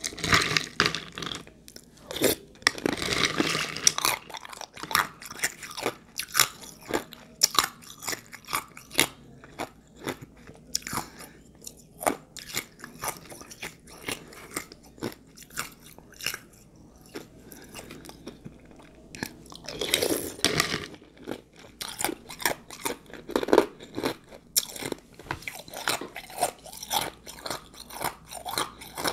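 Close-miked crunching and chewing of ice with juice: a steady run of sharp crunches, with heavier bursts of biting about three seconds in and again about twenty seconds in.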